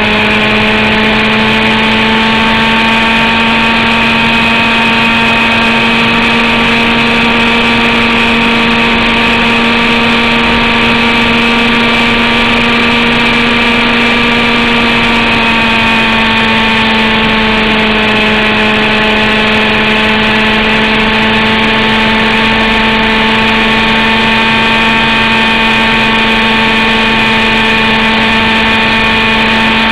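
Zenoah G29RC two-stroke gas engine of a Mongoose RC helicopter, heard close up from on board, running steadily at flight revs. Its pitch dips slightly about halfway through and rises again near the end.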